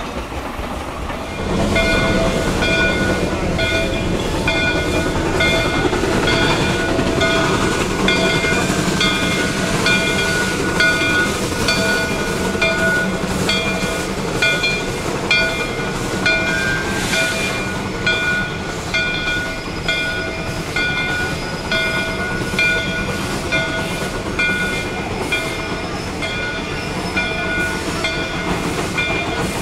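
A steam train rolling slowly past, with its locomotive bell ringing over and over in a steady rhythm above the low rumble of the wheels.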